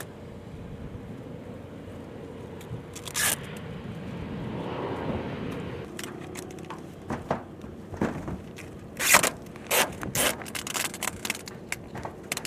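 Tape ripped off its roll and pressed onto a plastic roof tarp: one sharp rip about three seconds in, a soft crinkling rustle of the tarp, then a quick series of short rips and scrapes in the second half, loudest about nine seconds in.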